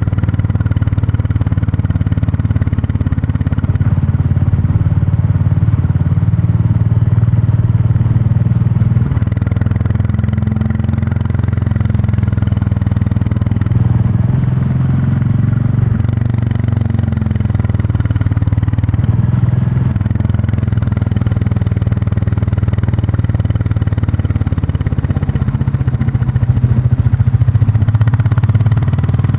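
Royal Enfield Classic 350's single-cylinder engine and exhaust running under way, a steady low engine note whose pitch shifts several times as road speed changes, growing briefly louder near the end.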